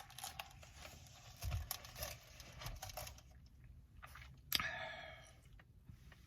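Faint crinkling and rustling of takeout food packaging, with chewing. About four and a half seconds in comes one short sound that falls in pitch.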